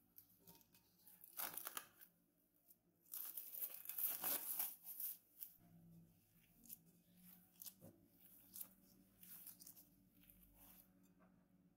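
Plastic cling film being peeled off a glass bowl, crinkling and tearing in two loud stretches in the first few seconds. Softer crinkles of a plastic food glove follow as the hand punches down the risen dough and lifts it out.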